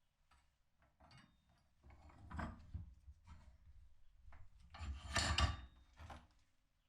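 Hand file scraping on a small steel part in irregular strokes, loudest about two and a half seconds and five seconds in.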